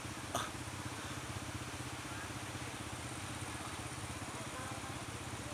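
Quad bike (ATV) engines idling steadily, with one brief sharp click about a third of a second in.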